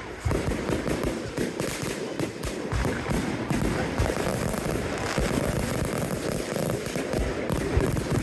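Consumer fireworks going off in a rapid barrage, dense overlapping bangs with crackling.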